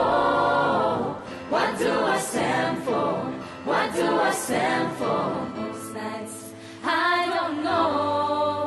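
Mixed choir of men and women singing together in sung phrases with gliding notes.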